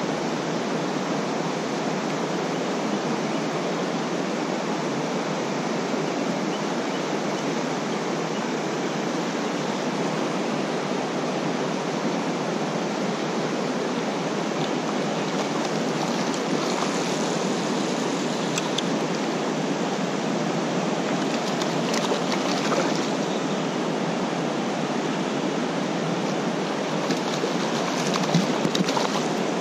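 Steady rush of a fast-flowing creek running over riffles and rocks, with a few light splashes close by near the end.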